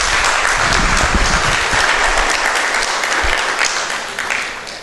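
Audience applauding, a dense steady clapping that fades away near the end.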